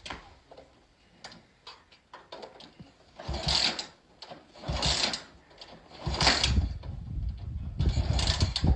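Honda motorcycle being kick-started again and again: the kick-start lever ratchets and clanks, and the engine turns over in four bursts about a second and a half apart without catching.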